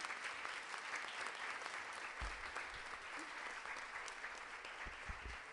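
An audience clapping steadily, a dense patter of many hands that eases off slightly near the end, with a few low thumps.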